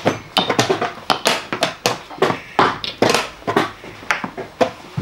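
Chess pieces being picked up and set down on the board and the buttons of a digital chess clock being pressed during fast play: a quick run of clicks and knocks, about four a second, with more from neighbouring boards.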